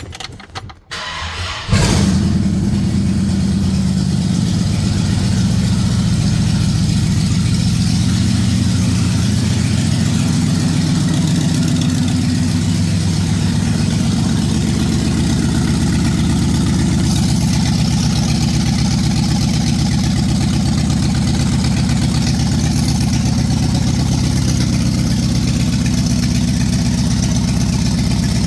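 1965 Ford Galaxie's 352 FE big-block V8 cranking briefly, catching about two seconds in, then running steadily. The engine has a bad rod bearing and a cracked block, according to the owner.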